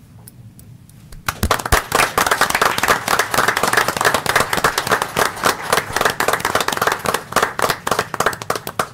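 Applause from a small group of people, a dense patter of hand claps that starts about a second in and stops just at the end.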